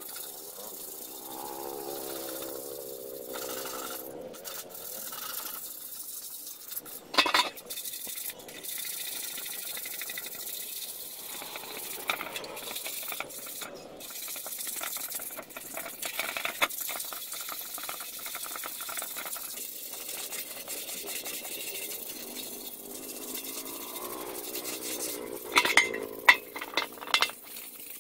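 Steady scraping and rubbing, with a sharp knock about seven seconds in and a run of loud knocks and clinks near the end.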